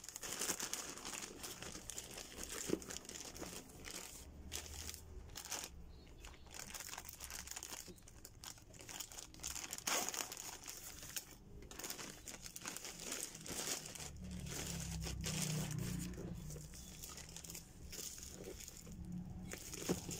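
Plastic courier mailer bag crinkling and rustling as hands handle and open it, in irregular bursts.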